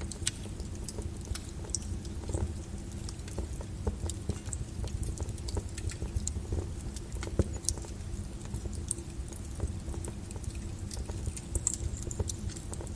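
Small wood fire crackling in a fireplace: irregular small pops and snaps, several a second, over a low steady rumble of the flames.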